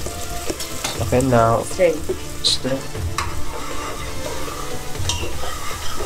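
Curry frying and sizzling in a pan while a spoon stirs it, with irregular scrapes and clicks of the spoon against the pan.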